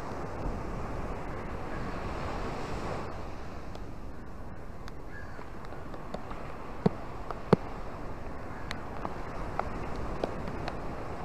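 Small surf breaking and washing up a sandy beach, with steady wind on the microphone; the wash swells about two seconds in. Scattered sharp taps sound over it, two louder ones about seven seconds in.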